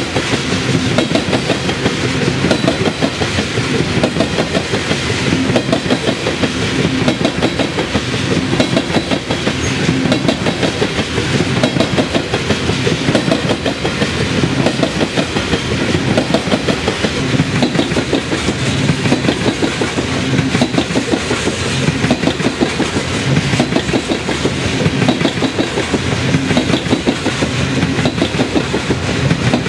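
Loaded coal train's hopper cars rolling past at slow speed, steel wheels clicking steadily over the rail joints over a continuous rumble.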